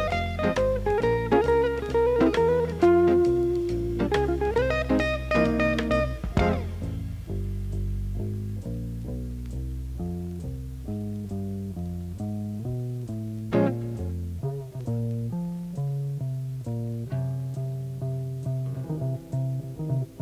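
Instrumental music led by guitar with bass. The full band thins out about six seconds in, leaving a run of plucked guitar notes.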